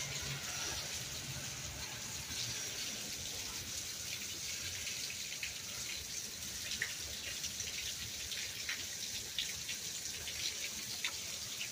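Steady rain falling: an even hiss with scattered small ticks of drops landing.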